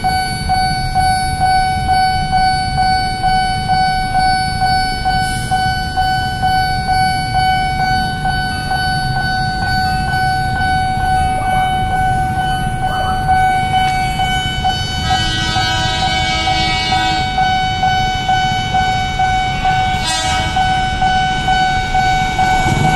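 Railway level crossing warning bell ringing continuously in a steady pulsing pattern, over a low rumble of wind and traffic. About two-thirds of the way in, the horn of an approaching JR 205 series electric commuter train sounds for about two seconds.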